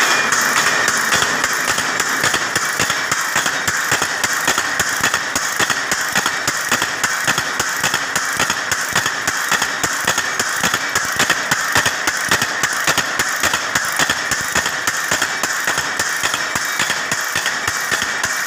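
Barbed wire making machine running, a steady mechanical clatter with a rapid, even clicking as the barbing head twists barbs onto the line wire.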